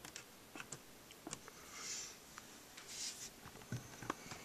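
Faint, irregular clicks of push buttons being pressed on a homemade fireworks firing-system control panel, with a couple of soft rustles.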